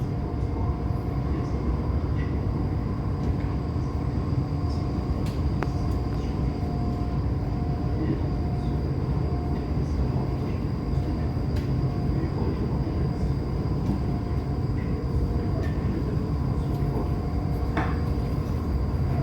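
Passenger train running, heard from inside the carriage: a steady rumble with a faint constant hum and occasional light clicks.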